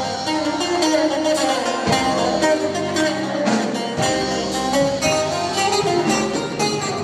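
Bouzouki played live: a fast melody of quick picked notes on its metal strings.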